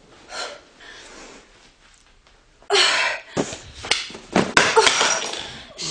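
Hard breathing during fast sandbag squat reps. The first half is soft, then from about three seconds in come loud, forceful exhales mixed with the rustle of the sandbag and several sharp knocks as the bag is moved.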